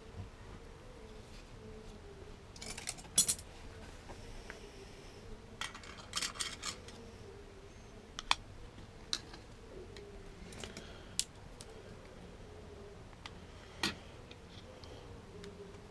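Scattered light clicks and small clatters as rubber casting moulds and their backing boards are handled and fitted together, over a faint steady hum.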